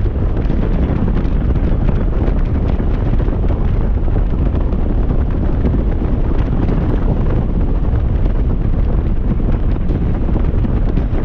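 Wind buffeting the microphone of a rider on a Honda motorcycle at highway speed: a loud, steady, low rumble.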